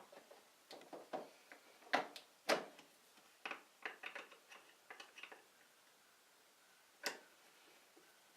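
Irregular light clicks and knocks of a screwdriver and plastic parts as a car's turn-signal housing is fastened back into place. The sharpest knocks come about two and two and a half seconds in, with one more about seven seconds in.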